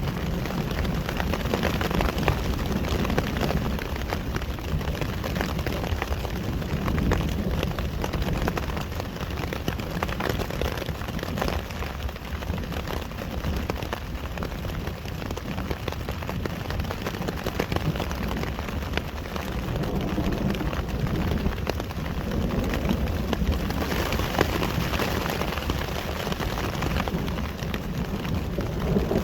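Steady rain of a thunderstorm, many drops ticking close by, over a low rumble that swells and fades.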